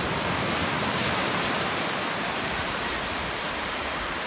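Small sea waves breaking and foamy surf washing through the shallows, a steady rushing hiss.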